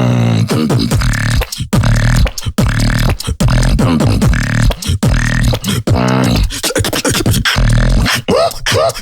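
Solo human beatboxing: sharp mouth-made kick and snare strikes in quick rhythm, with pitched, sliding vocal bass tones between them.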